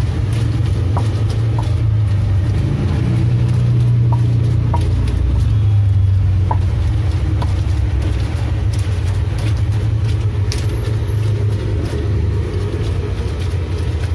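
Stone pestle (ulekan) grinding and crushing green chilies against a stone mortar (cobek), with scattered small clicks and scrapes, over a steady low rumble that is the loudest sound throughout.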